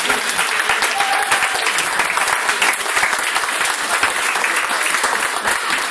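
An audience clapping steadily.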